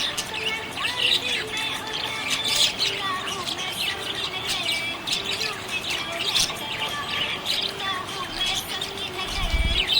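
Budgerigars chirping and chattering, a steady stream of short overlapping chirps and warbles, with a brief low thump near the end.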